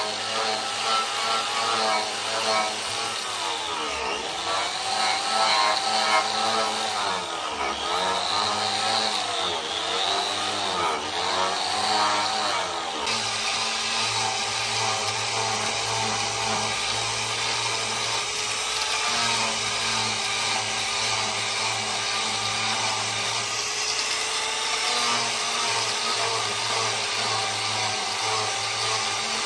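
Electric angle grinder with a sanding disc running against a wooden axe handle, sanding and shaping it. The motor's whine sags and recovers several times in the first half as the disc is pressed into the wood, then runs steadily.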